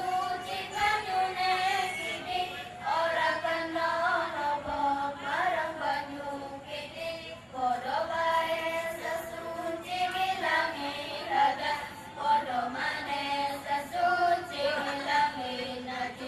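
A group of young children singing or chanting together in unison, a continuous melodic line with short held notes.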